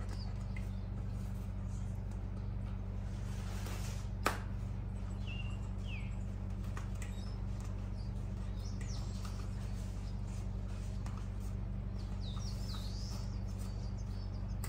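Scattered short bird chirps, some falling in pitch, over a steady low hum, with one sharp click about four seconds in.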